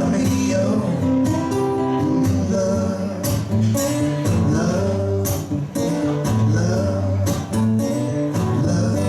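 Live band playing a guitar-led instrumental passage with a steady beat.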